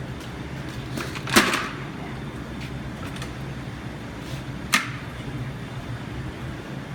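Two sharp knocks, one about a second and a half in and one near five seconds in, over a steady low hum.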